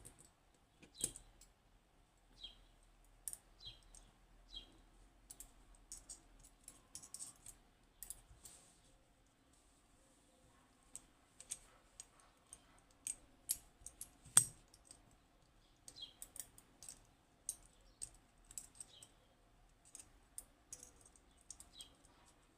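Irregular small metallic clicks and taps from the parts of a Western Electric 30B lever lock being handled as it is taken apart, with one louder click about two-thirds of the way through.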